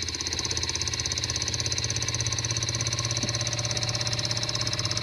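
Motor of a bolt pull-test rig running steadily with a fast, even pulse, pulling a glued-in wave bolt out in tension as the load climbs.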